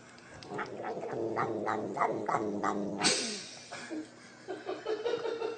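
A domestic cat yowling in a long, low drawn-out cry, then a sudden sharp hiss about three seconds in, followed by a run of short, quick cries.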